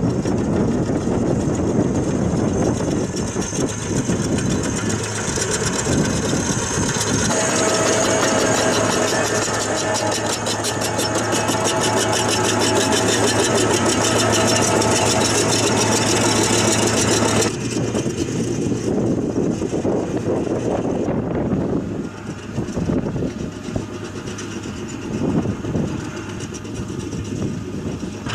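Heavy diesel engines of field-drainage machinery running steadily: a tracked drain-laying machine and a tractor working in the field. About two-thirds of the way through the sound drops and becomes more uneven.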